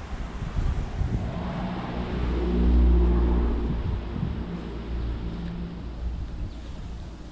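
A motor vehicle engine going past, swelling to its loudest about three seconds in and then fading.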